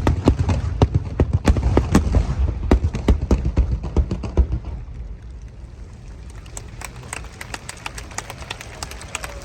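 Fireworks bursting at the close of the Phoenix display: a sudden loud boom and deep rumble with many sharp crackling cracks for about five seconds. The rumble then fades, leaving lighter, denser crackling.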